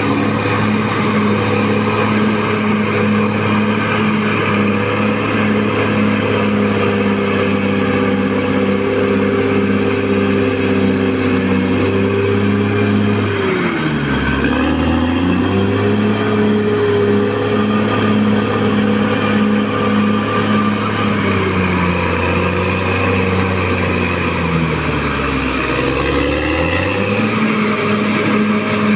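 Caterpillar D6R XL bulldozer's diesel engine running loud and steady, with a faint high whine above it. Its pitch drops sharply and climbs back twice, about 13 seconds in and again around 25 seconds in.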